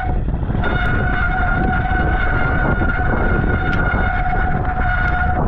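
Mountain bike disc brakes squealing in one steady, high-pitched tone, cutting out briefly at the start and again near the end, over a loud low rumble of wind and riding noise.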